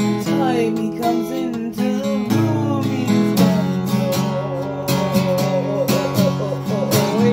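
Steel-string acoustic guitar strummed in a steady rhythm of chords, with a voice singing along without words.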